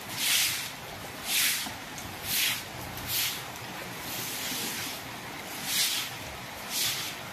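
Broom swishing across wet paving stones, about one stroke a second with a short pause midway, over the steady hiss of rain.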